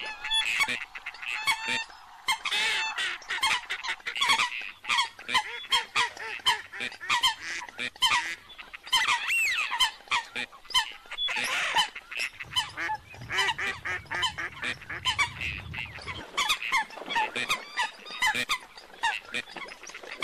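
A flock of waterbirds, coots and ducks such as mallards, calling at once: a dense, unbroken chorus of short overlapping calls, many sliding up or down in pitch.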